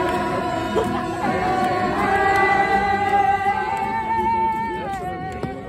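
A group of people singing together, unaccompanied, with long held notes; the top note slides down a little before the end.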